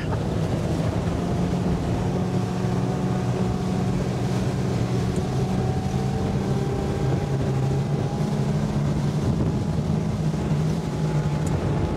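Outboard motor pushing a 22-foot bay boat across open water, running steadily under a constant hiss. Its pitch rises slightly around the middle.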